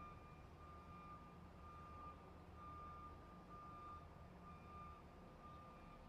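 Truck's electronic warning beeper sounding a single high tone about once a second, with the truck's engine running low underneath.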